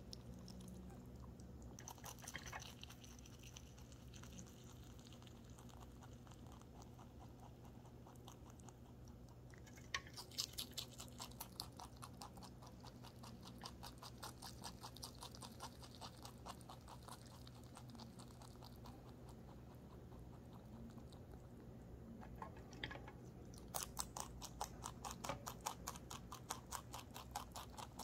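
A rabbit chewing cilantro close up: a rapid run of fine, crisp crunches as it munches the leaves and stems. The chewing comes in spells, louder about ten seconds in and again over the last few seconds.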